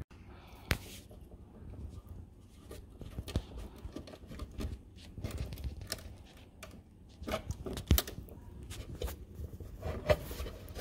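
Scattered small clicks and scrapes of an insulated screwdriver and a cable being worked into a plastic terminal block, with a couple of sharper clicks among them.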